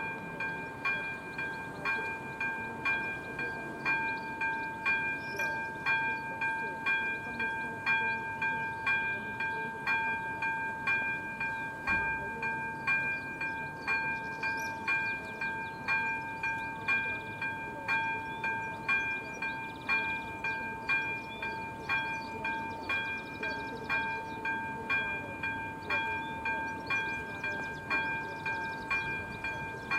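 Level-crossing electronic bell (ZV-01/ZV-02 on an AŽD 97 crossing) ringing a repeated ding about once a second, each stroke ringing on into the next. It is the crossing's warning that a train is approaching, sounding while the barriers are down.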